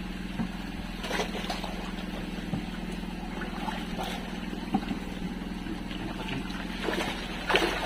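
A small boat engine runs steadily at idle, with a few sharp knocks against the wooden hull and some light water splashing alongside.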